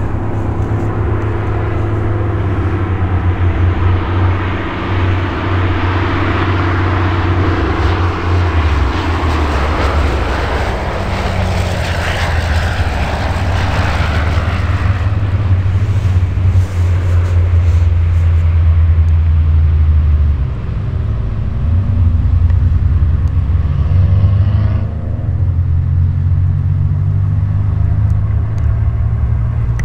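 Van's RV-7 light aircraft's single piston engine and propeller on landing approach, swelling as the plane passes low along the runway about halfway through. The higher propeller noise then drops away in two steps as it rolls out on the runway, leaving a steady low engine hum.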